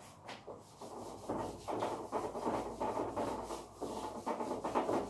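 A whiteboard being wiped clean of marker writing, in a rapid run of rubbing strokes that starts about a second in.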